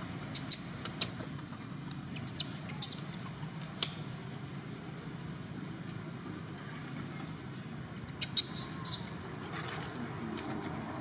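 Steady low background rumble with short, sharp clicks scattered through it, a cluster in the first four seconds and another about eight to nine seconds in.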